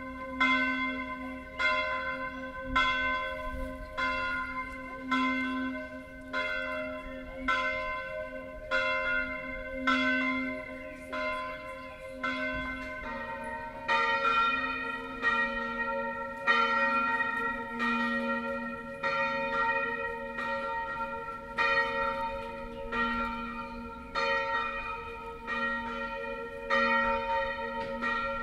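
A church bell swung full circle in the Tyrolean style, sounding a regular stroke about every 0.7 s. For the first part it is bell V, a C4 bell cast by Carlo Chiappani of Trento in 1906. About 13 seconds in, the lower B-flat bell IV (cast by Achille Mazzola of Valduggia in 1928, 276 kg) takes over at the same even pace.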